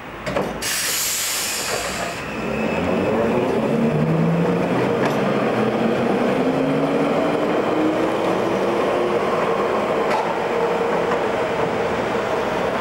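Melbourne W class tram running close by: a short burst of hiss about a second in, then the rumble of its wheels on the rails under the whine of its electric traction motors, which rises steadily in pitch as the tram gathers speed.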